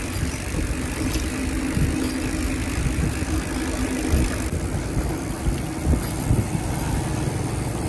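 Bicycle ride noise: a steady rumble of wind and road on the camera's microphone as the bike rolls along, with a few low knocks from bumps, one about two seconds in and two close together near six seconds.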